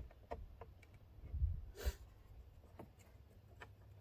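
Hands handling and fitting plastic wiring-harness connectors on a truck door panel: scattered light clicks, a dull bump about a second and a half in, and a short scrape just after it.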